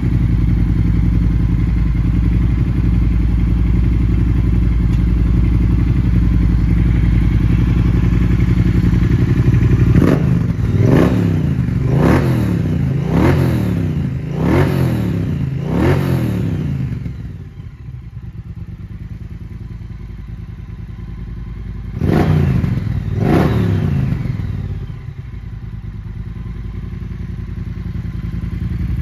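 A Triumph Bonneville Bobber's 1200cc parallel-twin engine idling through a decatted Vance & Hines exhaust. About a third of the way in it is revved six times in quick succession, each blip falling back, then settles to a quieter idle. It is blipped twice more near the end.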